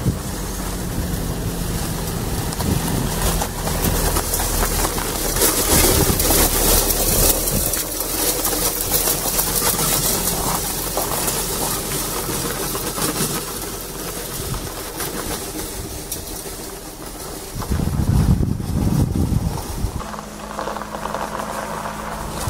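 A Peugeot car towing a salt spreader drives past on a slushy, snow-covered road. Its engine and tyre hiss swell to their loudest about five seconds in, then fade as it moves away. A heavy low rumble comes a few seconds before the end, and then a steady engine hum as the car approaches again.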